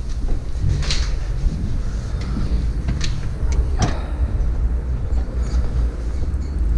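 Steady low rumble of handling and walking noise on a body-worn camera's microphone, with a few sharp clicks and knocks as a glass door is pushed open and the wearer steps out onto a stone landing.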